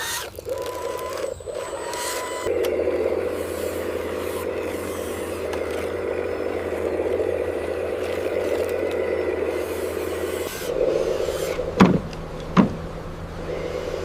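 Construction-machine engine running steadily, growing louder a couple of seconds in. Two short, loud falling squeals come about two seconds before the end.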